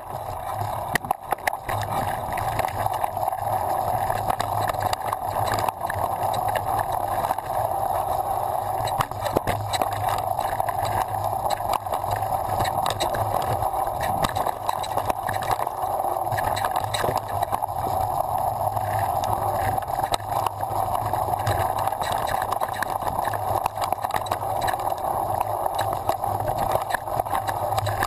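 Downhill mountain bike riding down a dirt forest trail, heard from a camera mounted on the bike or rider. A steady rushing rumble of tyres and wind runs throughout, with frequent small knocks and rattles over the bumps.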